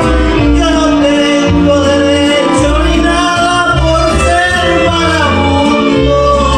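A man singing into a microphone, amplified over a recorded backing track with a bass line, in Latin style, with long held notes.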